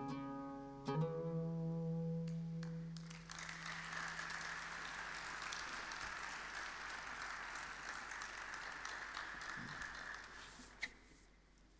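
Oud's last plucked notes ring out and fade, with a final note struck about a second in. Audience applause starts about three seconds in and fades away near the end.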